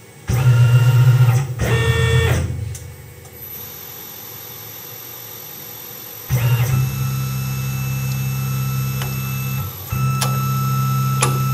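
Tormach PCNC 1100 CNC mill running a form tap into holes in a stainless steel plate: the spindle motor hums with a steady whine. The whine comes in two short spells at first, then runs steadily from about halfway, stopping for a moment and starting again near the end.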